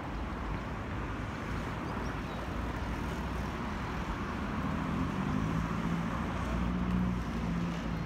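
Street traffic and wind on the microphone, with a passing vehicle's engine hum that comes up about halfway through and holds steady until near the end.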